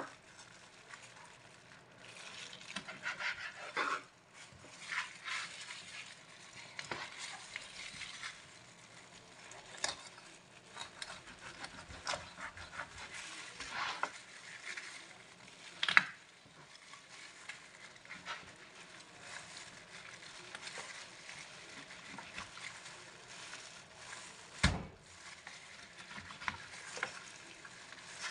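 A knife cutting up a whole raw chicken on a plastic cutting board: irregular scraping and handling noise with scattered knocks of the blade on the board, the loudest about sixteen seconds in and a duller thump near twenty-five seconds.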